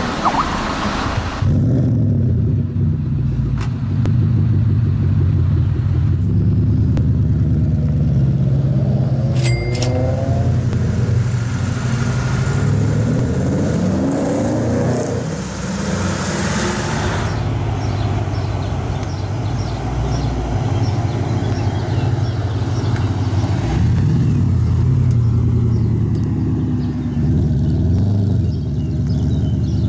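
Background music cuts off about a second and a half in, giving way to a car engine running steadily. Its pitch rises and falls briefly twice, near the middle and a few seconds later.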